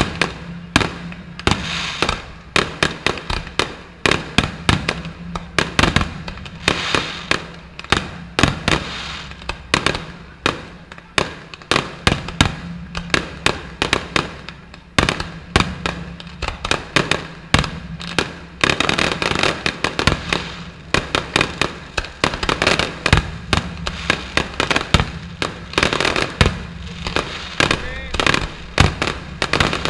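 Fireworks display: aerial shells bursting one after another in a dense barrage, dozens of sharp bangs, some in quick clusters, over continuous crackling.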